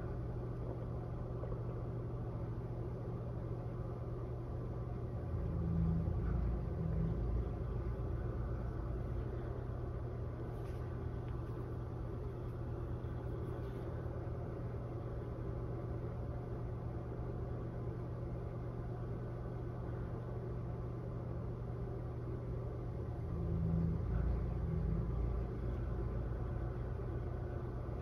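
Steady low hum, swelling briefly twice: about six seconds in and again near the end.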